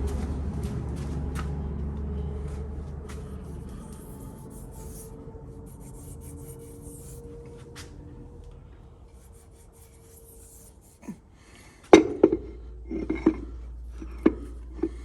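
Hands working on a transmission pump and gasket slick with transmission fluid: light rubbing and small scattered clicks, then a few sharp knocks of parts being handled near the end, the first of them the loudest.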